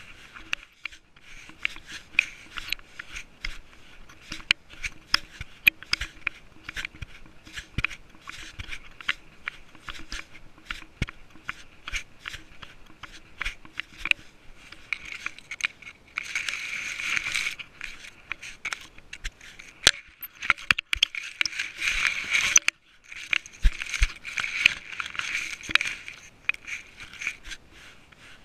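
Close rustling, scraping and many small knocks from a GoPro Session camera worn by a walking cat: the mount jostles with each step, and grass and leaves brush against the camera. The rustling gets louder in several bouts in the second half.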